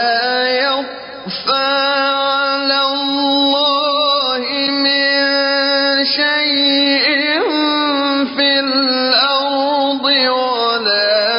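A man reciting the Quran in a slow, melodic chant, drawing out long held notes with wavering ornaments and brief breaks between phrases.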